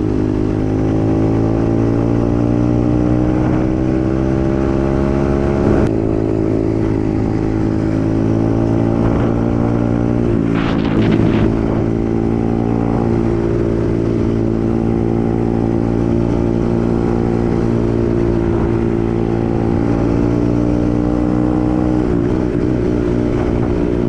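125cc dirt bike engine running under way, its pitch climbing as it accelerates, dropping at a gear change about six seconds in, then climbing again. A short burst of rough noise comes around eleven seconds in, after which the engine holds a steady cruising note.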